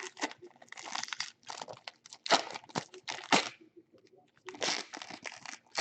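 Plastic packaging crinkling and rustling as trading cards are handled, in irregular rustles with two louder crackles about two and three seconds in.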